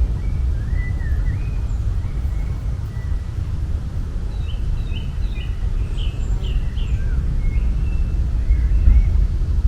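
Small songbirds chirping in short, quick notes, with a busy run of calls about halfway through, over a steady low rumble of outdoor ambience.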